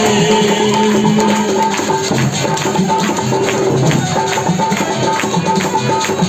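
Instrumental worship music: a steady percussion beat of regular strikes over sustained held notes, with no singing.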